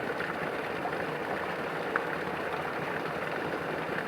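Steady rush of running water, as from a flowing spring, with a single short click about two seconds in.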